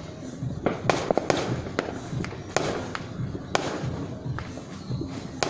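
Fireworks going off: a string of sharp bangs at uneven intervals, several in quick succession about a second in, then more spaced out.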